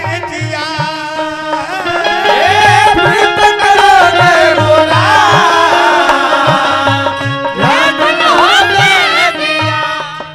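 Live Bhojpuri folk stage music: a long, wavering melody line over a steady low drum beat, swelling louder after a couple of seconds and easing off near the end.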